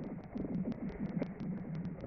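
Skates gliding on thin black ice, with blade strokes and many short ticks as the thin ice sheet rings and sings under the skater.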